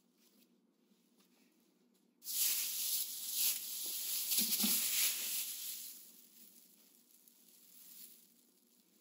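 Bedding rustling as it is handled around the resident in bed, starting abruptly about two seconds in and fading away over the last few seconds.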